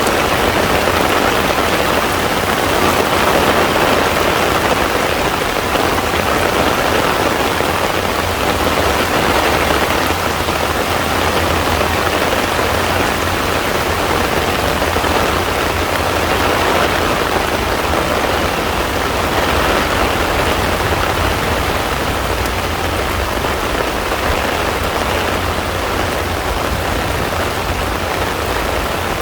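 Heavy rain falling steadily on a pond's surface, an even dense patter of drops on water.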